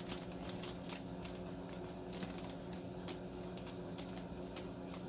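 Light, irregular clicks and rustles of a wiring harness in a plastic zip-top bag being handled, over a steady low electrical hum.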